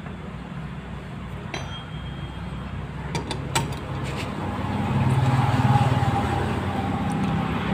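A few light metallic clicks as the camshaft holder bolts are set back into the Suzuki Satria FU cylinder head. In the second half a steady low hum swells up under them.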